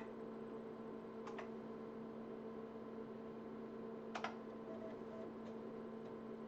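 Steady low electrical hum, with computer keyboard keystrokes on top: one click about a second in and a quick double click about four seconds in.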